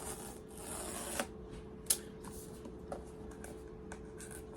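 Paper and cardboard packaging of an iPad box rustling as it is peeled open, with a few sharp clicks and taps, the loudest about two seconds in.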